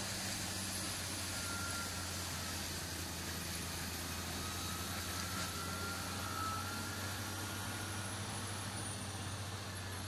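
A large tractor's engine running steadily under load, driving a front-mounted forestry mulcher that shreds brush and small trees: a constant low hum over a dense grinding noise, with a faint thin whine in the middle.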